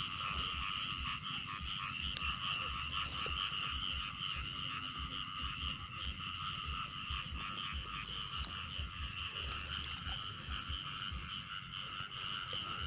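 A dense chorus of many frogs calling together, a steady unbroken din with no single caller standing out.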